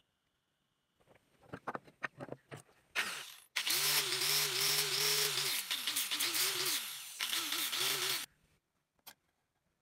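Small wooden blocks knocking and clicking as they are handled, then an electric angle grinder fitted with a sanding disc runs for about four and a half seconds, sanding a small block of wood. Its motor pitch dips and recovers as the disc is pressed into the wood, and it cuts off suddenly.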